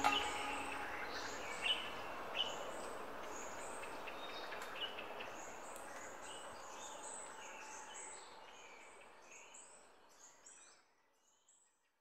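The end of the background music: its tonal notes stop at the start, leaving a fading hiss with many short, high, falling chirps that grows fainter and dies away to silence about a second before the end.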